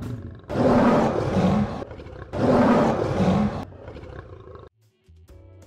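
A lion roaring twice, each roar lasting about a second and a half, the second starting just after the first ends.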